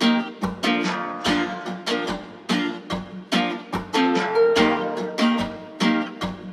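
Background music: plucked guitar notes in a steady rhythm.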